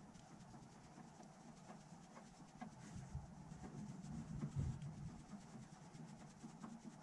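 Faint handling noise on a lathe as the compound slide is set for a taper: scattered small metallic clicks and rubbing over a low hum that swells briefly about halfway through.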